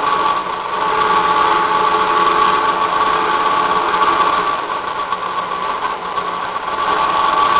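Electric grinder running steadily with a high whine while its stone takes a very light, slow cut along a planer knife.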